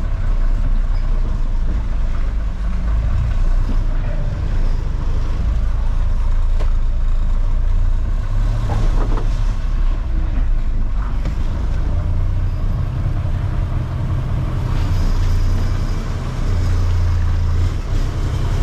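Tractor-trailer truck's diesel engine running as the truck manoeuvres slowly, heard from inside the cab: a steady deep rumble that grows louder in the second half.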